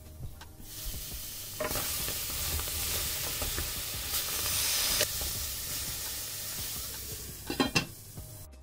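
Okra sizzling as it fries in an aluminium pot, stirred with a wooden spatula; the sizzle comes up loud after about a second and a half. Near the end a few sharp clatters as the aluminium lid goes back onto the pot.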